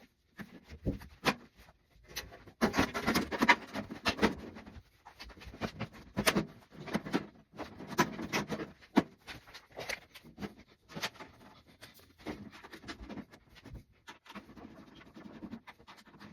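Irregular clicks, knocks and clattering of objects being handled, busiest in two stretches, from about two and a half seconds to five and from about six to nine seconds.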